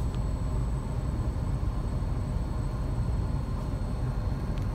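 Steady low rumble heard from inside a car's cabin as a freight train rolls across the grade crossing ahead.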